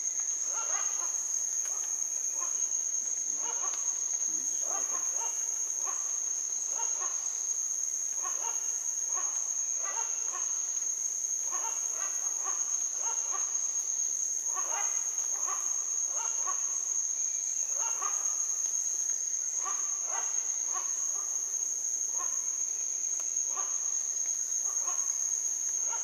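Tropical rainforest insect chorus at night: a steady, high-pitched, unbroken trill, with other short calls repeating irregularly about once a second beneath it.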